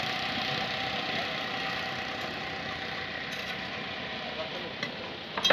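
An engine running steadily and slowly fading away. A few light clicks, then a sharp knock just before the end.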